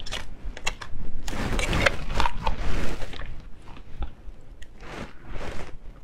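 Close-miked handling noises: clicks and crinkles from a clear plastic jar seal, and fingers picking through oil-coated crayfish tails on a plate. There is a dense stretch of rustling about a second in and another shorter one near the end.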